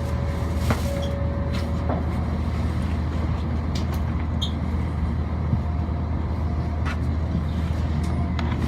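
Steady low hum of railway platform ambience, with a few faint clicks and two short, thin held tones, one at the start and one from about halfway to near the end.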